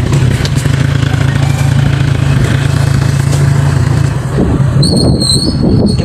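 Motorcycle engine running steadily while riding, heard from on the bike. A thin, high squeal rises over it about five seconds in.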